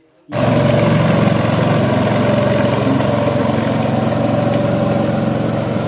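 An engine running steadily at an even speed, cutting in abruptly about a third of a second in.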